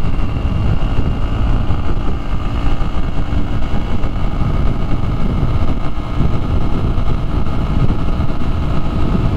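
Honda XR150L's single-cylinder engine running steadily at high speed, held near 60 mph, under heavy wind noise on the microphone.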